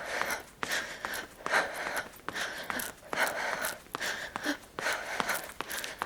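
A girl panting hard while running: quick, regular in-and-out breaths, roughly three every two seconds, with short sharp taps of her footfalls on the pavement between them.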